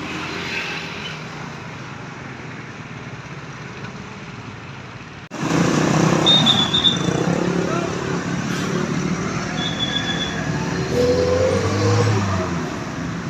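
Roadside traffic noise from vehicles passing on a road. It jumps louder at a sudden cut about five seconds in, and a couple of short, high tones come through later.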